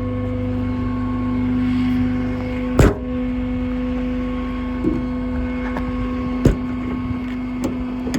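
A truck-mounted hydraulic system, the kind that drives a service truck's air compressor and crane, running with a steady, even-pitched whine over the diesel rumble. Two sharp metallic clacks come about three seconds in and again about six and a half seconds in.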